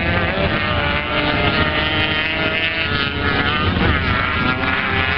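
Several flat-track racing motorcycles running hard around a dirt oval, their engine notes overlapping, with the pitch dipping and then climbing again about four seconds in.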